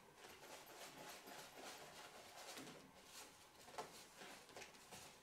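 Faint rustling and crinkling of a clear plastic bag of numbered lottery lots being shaken to mix them for the draw.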